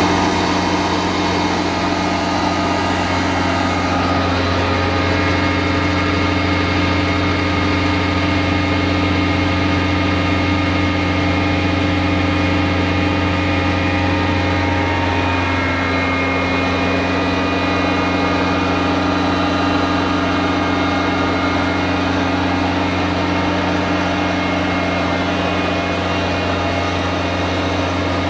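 Tracked diamond core drill running steadily while drilling, its 260 HP Cummins QSB6.7 diesel engine holding a constant speed with a steady low hum.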